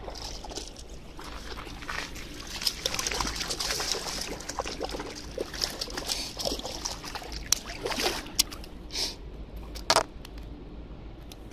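Hooked trout splashing and thrashing at the water's surface as it is played to the bank and netted, with water sloshing and a couple of sharper splashes near the end.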